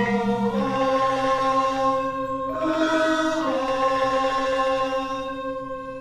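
Balinese gamelan music: long ringing metallophone tones that throb evenly, with a short change of notes about three seconds in.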